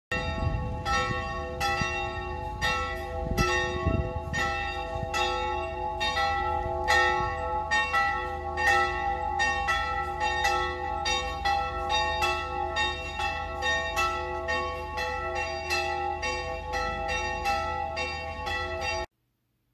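Church bells ringing in a quick, uneven peal: several bells at different pitches struck about two or three times a second, their tones ringing on between strokes. The ringing cuts off suddenly near the end.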